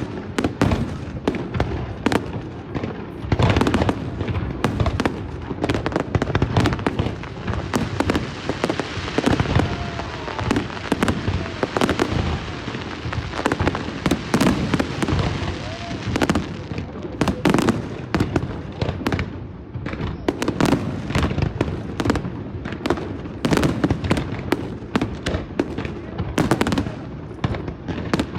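Fireworks display: a rapid, continuous barrage of bangs and crackling bursts, with a hissing wash of crackle through the middle stretch.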